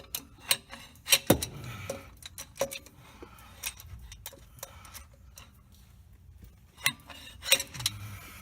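Metal hand tools and small hardware clinking and tapping in sharp, irregular clicks, with a cluster about a second in and another near the end.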